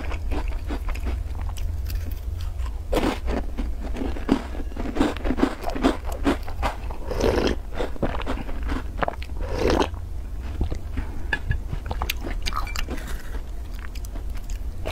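Close-miked biting, crunching and chewing of crisp black-sesame taosu (Chinese shortbread) cookies dipped in coconut milk. Around the middle come a couple of gulps as the coconut milk is drunk from the bowl. A steady low hum runs underneath.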